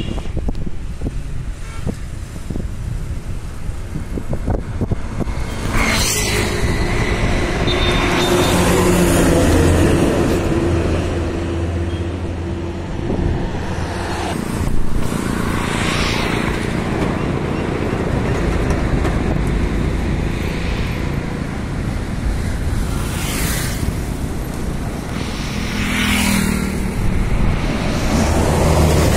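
Buses and other highway traffic passing close one after another, each going by as a rush of tyre and engine noise that swells and fades, over a heavy engine's low hum. Near the end a Volvo intercity coach draws close.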